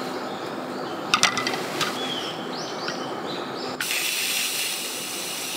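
Stainless steel pan set down on a camping gas stove, a few metal clinks about a second in, with short bird chirps in the middle. About four seconds in, a steady hiss starts suddenly: gas flowing from the stove's opened valve before the burner is lit.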